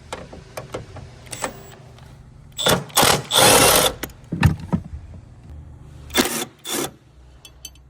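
A cordless power tool running in short bursts as it loosens the seat belt retractor bolts: a longer run a few seconds in and a shorter one near the end, with small clicks of the tool and bolts between.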